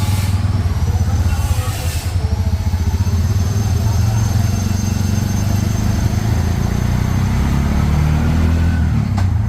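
Bajaj auto-rickshaw engine running with a steady low drone.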